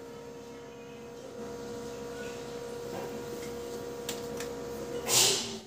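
Brother MFC-L2700D laser printer running while it prints a page: a steady motor hum that slowly grows louder, a few light ticks about four seconds in, and a short, louder rush of noise near the end.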